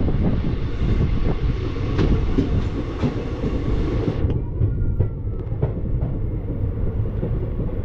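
Passenger train running along the track, heard from aboard a coach: a steady rumble of wheels on rails with scattered clicks and knocks from the rail joints. The rushing hiss dulls a little past halfway through.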